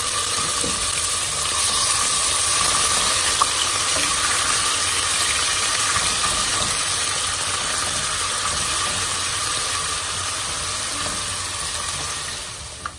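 Ground chicken sizzling in hot oil in a nonstick pot, a steady hiss, with a few light taps of the spatula as it is stirred. The sizzle drops away sharply just before the end.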